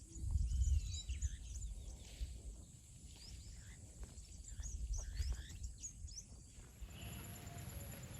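Many small birds chirping and twittering over a low rumble of noise, loudest in the first second. About seven seconds in the chirping stops and a steady background with a fast, even high pulsing takes over.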